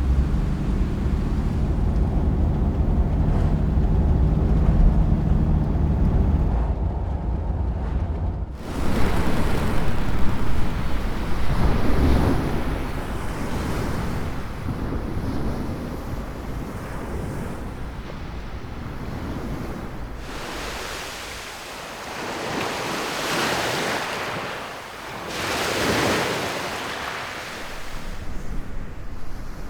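Waves washing onto the shore, surging and fading in repeated swells. A low, steady rumble fills the first eight seconds or so, then cuts off abruptly.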